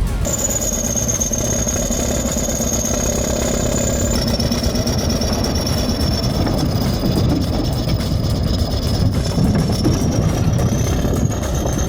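Bulldozer engine running under load with a continuous high-pitched squeal from the machine, which drops in pitch about four seconds in and then wavers.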